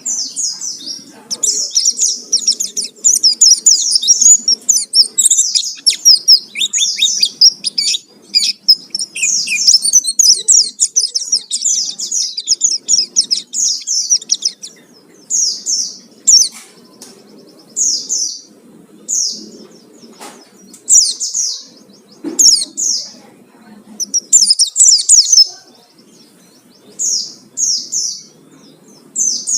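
White-eye (pleci) singing loud and high: a fast, unbroken twittering song for about the first half, then short quick phrases about once a second.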